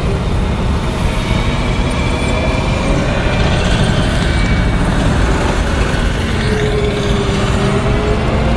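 Tracked armored military vehicle on the move: a loud, steady engine drone with a few faint whining tones that waver slightly in pitch.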